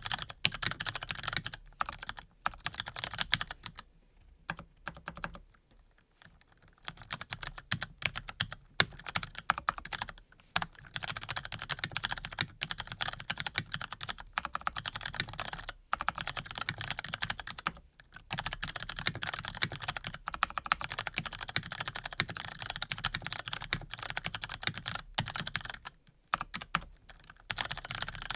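Continuous fast typing on a Razer BlackWidow V3 Pro mechanical keyboard with lubed Cherry MX Brown switches: a dense clatter of keystrokes, easing off into a few scattered clicks about four to seven seconds in before picking up again.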